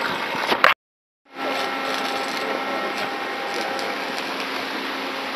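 A machine running steadily with a low hum. The sound cuts out completely for about half a second, about a second in.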